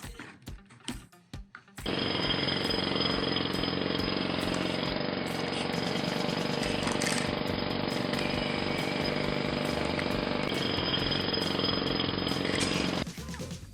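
A dense, steady mechanical rattle like a jackhammer, laid on as a construction-site sound effect, starts abruptly about two seconds in and cuts off shortly before the end. Background music plays with it.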